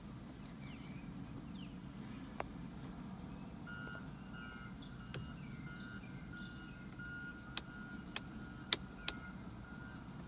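Steady low rumble of outdoor traffic. About four seconds in, a vehicle's reversing alarm starts beeping steadily with a high tone. A few sharp clicks sound near the end.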